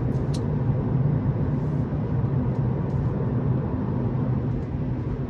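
Steady low rumble of road and tyre noise inside the cabin of an electric Tesla Model 3 driving at road speed.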